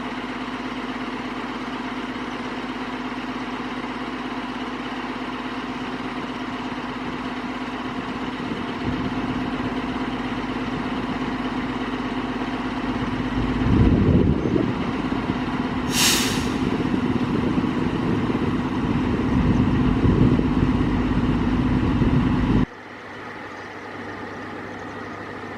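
Fire engine's diesel engine running with a steady drone that gets louder about 9 seconds in and again about 14 seconds in. A brief air-brake hiss comes about 16 seconds in, and the engine sound cuts off abruptly near the end.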